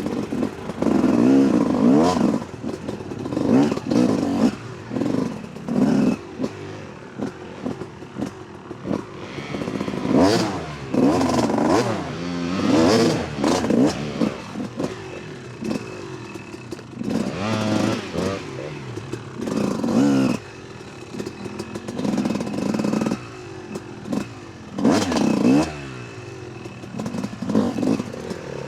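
Dirt bike engine revving in repeated short bursts of throttle, pitch rising and falling with each surge, while rocks knock and clatter under the wheels as the bike picks through a rocky section.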